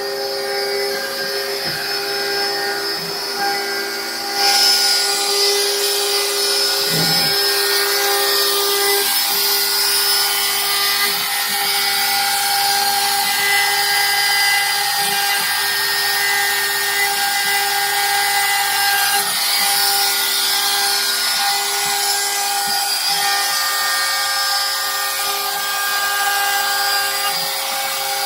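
X-Carve CNC router cutting mortises in teak: the spindle runs steadily while the stepper motors whine, their pitch shifting in steps as the machine moves. The cutting noise gets louder about four and a half seconds in.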